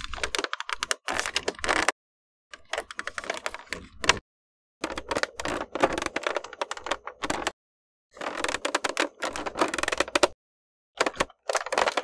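Plastic squeaking and creaking in quick runs of clicks, in about five separate takes a second or two long with short gaps of silence between them.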